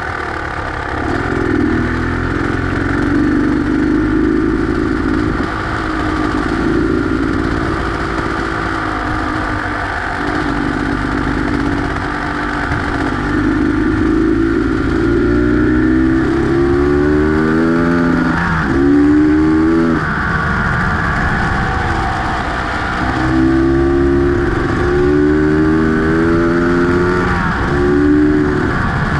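Beta X-Trainer 250 two-stroke single-cylinder engine running as the motorcycle is ridden, its revs climbing and dropping back several times in the second half.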